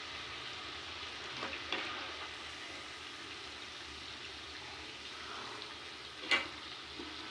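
Chana dal fritters (kachri) sizzling steadily as they deep-fry in hot oil in a kadhai. A single sharp clink comes about six seconds in.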